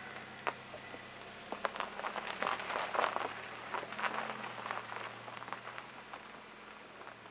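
An SUV's tyres crunching and popping over loose gravel as it pulls away along a dirt lane, with a faint engine hum underneath. The crackling is thickest in the middle and thins out as the car moves off.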